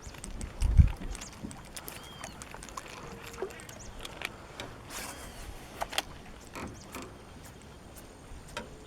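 Scattered small knocks and clicks in a small boat, with a heavier low thump about a second in.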